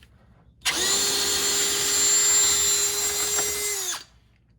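Electric hand drill running at a steady speed for about three seconds, then released, its pitch dropping as it spins down.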